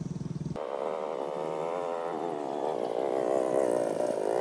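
A chorus of frogs calling, a steady wavering buzz of many overlapping voices. A low humming buzz cuts off about half a second in.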